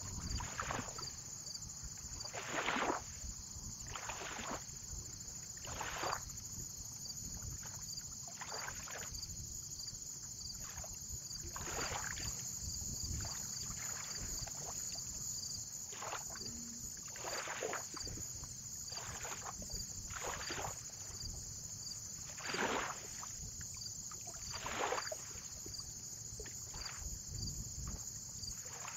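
Small waves lapping and splashing against a lake shore every second or two, over a steady low rumble and a steady high-pitched hiss with faint regular ticks.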